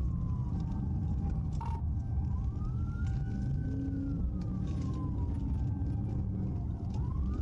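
Police siren on a slow wail, falling at first, rising about two seconds in, then sliding down again and rising once more near the end. It is heard from inside the pursuing patrol car, over steady engine and road rumble.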